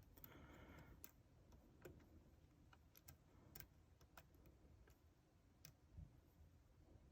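Faint, irregular clicks of a lock pick and tension wrench working the pins inside a Yale euro cylinder, with a short scrape about half a second in.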